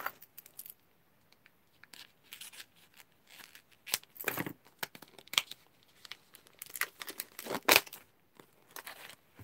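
Clear plastic wrapping on a pack of papers being snipped with scissors and pulled open: irregular crinkles, snips and rustles, loudest about four and a half seconds in and again near eight seconds.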